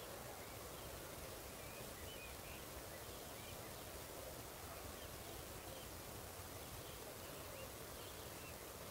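Faint countryside ambience at dusk: scattered short chirps of distant birds over a steady low hiss and rumble.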